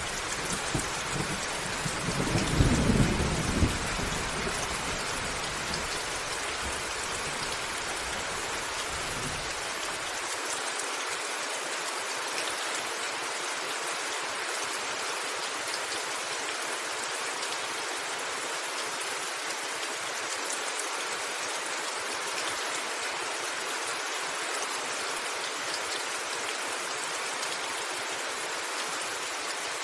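Steady heavy rain on a roof, with thunder rumbling loudly in the first few seconds. The thunder dies away by about ten seconds in, leaving the even hiss of the rain.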